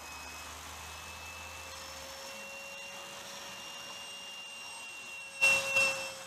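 Electric ducted fan of a radio-controlled L-39 jet running with a steady whine, its pitch stepping up slightly about two seconds in. A louder rushing burst comes in about five and a half seconds in.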